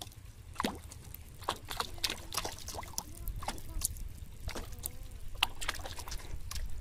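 Plastic bottle float slapping and splashing on the pond surface, with repeated short splashes and drips, as a hooked fish tugs at the line and jerks the bottle upright.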